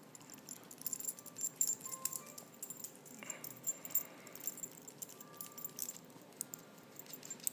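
Light metallic jingling and rattling: many quick, irregular clicks, with a few brief faint tones.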